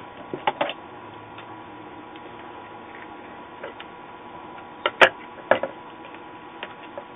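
Scattered sharp clicks and light knocks from a circuit board and soldering iron being handled on a tabletop, the sharpest about five seconds in, over a faint steady hum.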